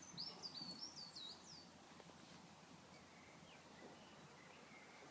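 A small bird singing: a quick run of high, sweeping whistled notes in the first second and a half, then a few faint short chirps.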